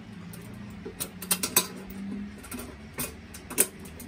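Several sharp metallic clicks and taps as the drill press's painted sheet-metal belt cover is handled and lifted open, over a faint steady low hum.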